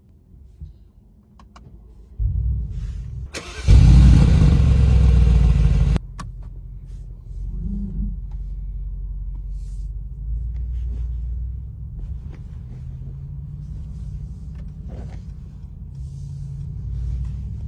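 Mercedes-AMG G63's twin-turbo V8 starting about two seconds in, flaring loudly in a cold-start rev for a couple of seconds, then dropping suddenly to a steady idle.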